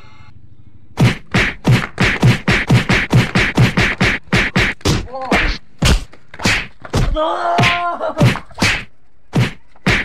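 A rapid run of punches and slaps landing on a person, about three hard whacks a second, starting about a second in. A man's voice cries out a few times between the blows.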